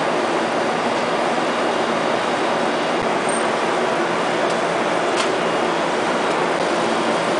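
Veneer dryer line and its automatic feeder running: a steady mechanical din with a low hum, and a light click about five seconds in.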